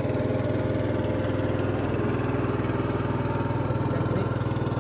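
A small engine idling steadily, with an even low hum that holds the same pitch throughout.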